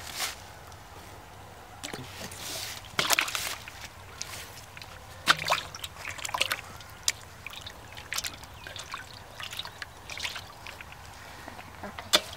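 Water splashing, dripping and trickling in a basin of freshly caught live fish, in irregular bursts, the loudest splashes about three and five seconds in and just before the end.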